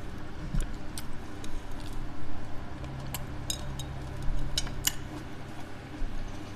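Fork and knife clinking and scraping against a plate of salad: a scattering of short, sharp ticks, a few a second at most.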